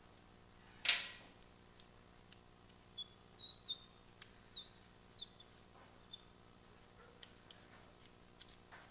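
A sharp metallic clank about a second in, ringing briefly, as metal parts or tools are handled during the rearset fitting. It is followed by a run of faint, short high chirps and small clicks.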